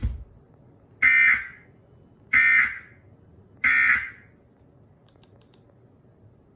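Emergency Alert System end-of-message (EOM) data bursts: three short bursts of buzzy digital SAME tones about 1.3 s apart, signalling the end of the alert. A brief low thump comes just before them.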